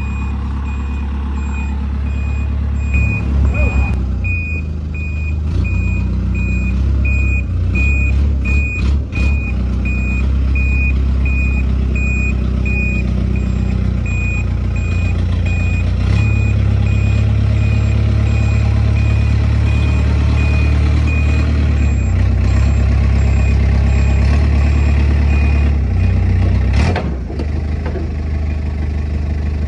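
Backhoe loader's diesel engine running steadily under load while its reversing alarm beeps in a regular pulse as the machine backs up. The beeping stops near the end, followed by a single knock.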